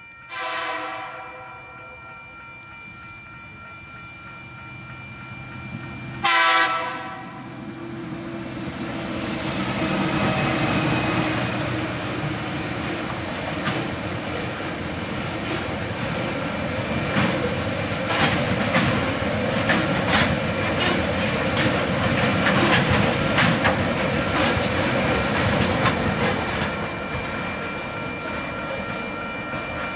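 Tasrail Goliath cement train passing a level crossing. The locomotive sounds two horn blasts, one just after the start and a louder one about six seconds in. Then the cement hopper wagons run past, their wheels clacking over the rail joints, before the train noise eases near the end. A level crossing warning bell rings steadily throughout.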